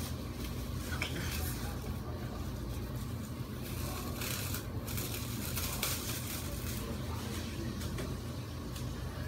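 Clear plastic cling wrap crinkling and rustling in short bursts as it is pulled and stretched across a door frame, over a steady low hum.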